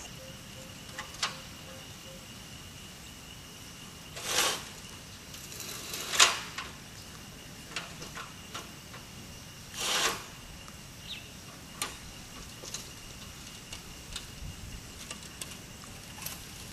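Insects trilling steadily in a high, thin tone, with three short noisy swishes about four, six and ten seconds in and a few faint clicks.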